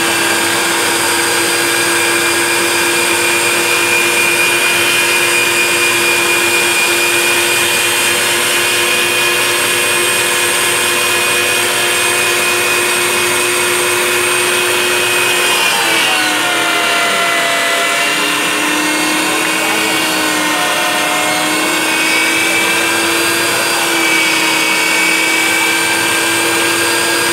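Electric meat grinder running, its motor making a steady whine while it pushes food through the cutting plate. About sixteen seconds in, the pitch drops and wavers for several seconds as the motor labours under the load, then climbs back to its running speed.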